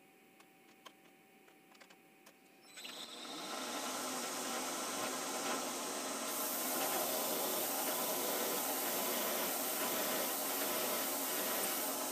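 Vertical milling machine starting up about three seconds in and drilling a hole through a steel flat bar clamped in its vise: a steady whirring, cutting noise that gets harsher about six seconds in as the bit works into the metal. A few light clicks of handling come before it starts.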